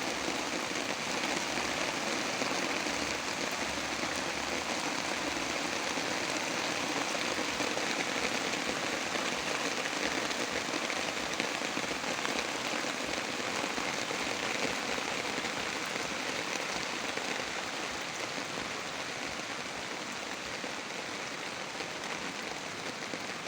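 Heavy rain falling in a steady, dense hiss, easing slightly near the end.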